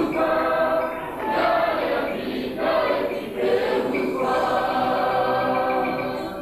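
A choir of voices singing together, holding long notes in phrases with short breaks between them.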